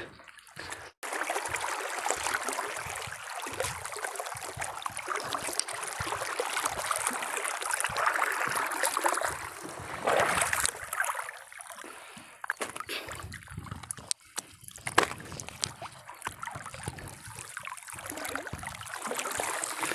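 Water splashing and trickling as a wet fishing net is hauled by hand up out of the water over the side of a small boat, with small irregular knocks and drips.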